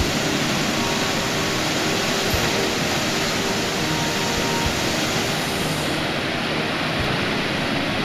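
Floodwater pouring from the open spillway gates of the Kelavarapalli dam and crashing into the river below: a loud, steady rush of falling water, with the dam full and its whole inflow being released.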